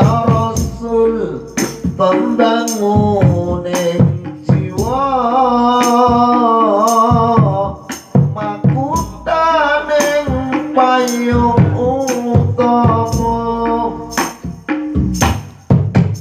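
Sholawat devotional song with rebana frame drums: a man sings a drawn-out, ornamented melody into a microphone over hand-drum strikes and jingling percussion.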